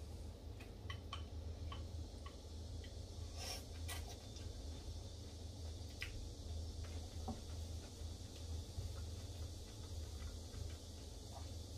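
Chopsticks clicking against ceramic bowls while eating: a scattering of small light clicks, with two louder ones about three and a half and four seconds in, over a low steady hum.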